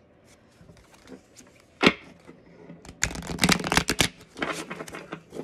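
A deck of Urban Crow Oracle cards being shuffled by hand: a single snap about two seconds in, then a quick, dense run of cards flicking against each other for about a second, and a few more scattered flicks near the end.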